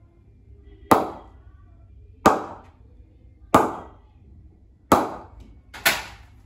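Leather cricket ball bouncing on the face of an SS Smacker English willow bat: five sharp knocks about a second and a bit apart, the last two closer together, each with a brief ring. It is a ping test of how the willow responds to the ball.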